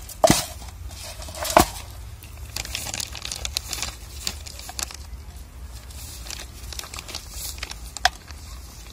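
A plastic packet crinkling as it is handled and squeezed, with sharp knocks about a quarter second in, about a second and a half in, and a smaller one near the end.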